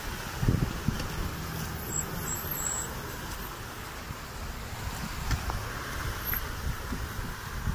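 Toyota Hilux pickup's engine running as it drives through a flooded, muddy track: a steady low rumble with irregular low thumps, the loudest about half a second in.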